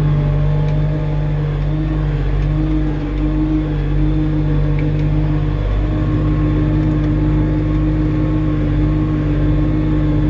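Tractor engine running steadily under load as it pulls a combinator seedbed cultivator through ploughed soil, heard from inside the cab. A constant drone holding one pitch throughout.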